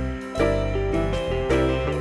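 Instrumental background music on a keyboard, with notes struck every half second or so.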